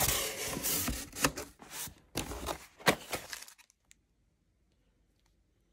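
Cardboard shipping box flaps and packing inserts being opened and handled: rustling and scraping with a few sharp knocks for about three and a half seconds, then near silence.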